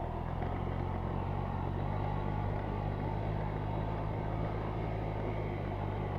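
Honda Dio scooter's small two-stroke engine running steadily while riding, rattling and knocking ("тарахтит, стучит"): a strange knock in the engine from a fault whose cause the rider does not know.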